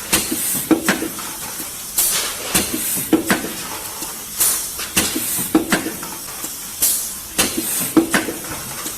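Aluminium foil container press line running continuously. A sharp metallic clank and a short hiss of compressed air repeat about every two and a half seconds over a steady mechanical hum.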